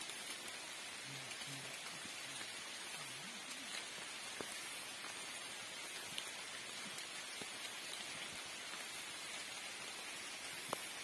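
Steady rain falling, with scattered single drops ticking sharply close by.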